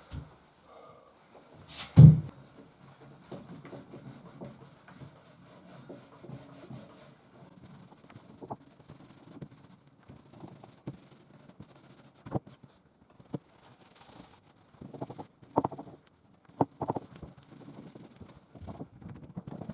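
Rubbing and scraping with scattered light knocks, and one loud thump about two seconds in.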